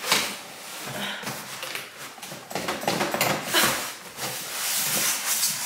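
Large cardboard appliance box being handled and opened: irregular scraping, rustling and light knocks of cardboard and packaging.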